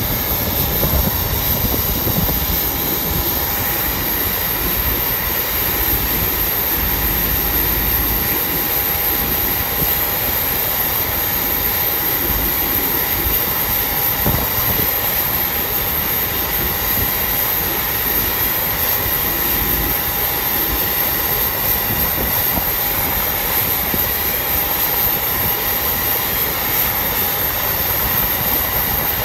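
Loud, steady jet aircraft noise: a constant rumble with a high, unchanging whine over it.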